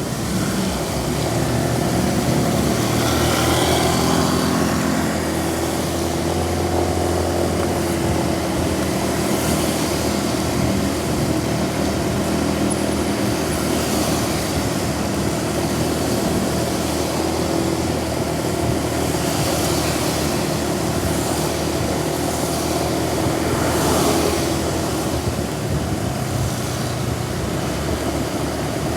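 A road vehicle's engine running with a steady hum, under an even hiss of heavy rain and wet road noise.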